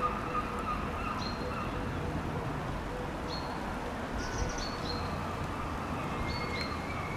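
Birds chirping in short high calls several times over a steady low rumble from a distant freight train crossing a viaduct.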